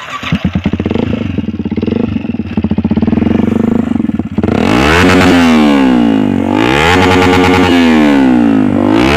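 Yamaha R15 V3's single-cylinder engine through an aftermarket SC Project exhaust, running with a fast even beat. About four and a half seconds in it gets much louder and is revved several times, the pitch rising and falling with each blip of the throttle.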